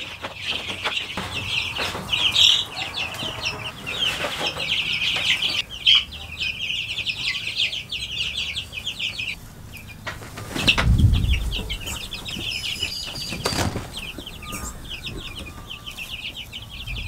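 A flock of chicks just under four weeks old peeping constantly, rapid high chirps overlapping throughout. Scattered knocks and a heavy low thump about eleven seconds in come from the sheet-metal brooder surround and heater being handled.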